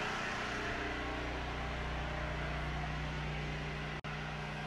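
A steady low hum with faint hiss, with a brief dropout about four seconds in.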